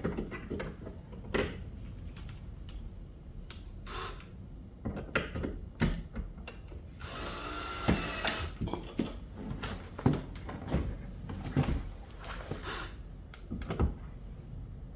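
Clicks and knocks of hands fitting a light switch and its wires into an electrical wall box. A small power tool, such as a screwdriver or drill, runs for about a second and a half around the middle, driving the mounting screws.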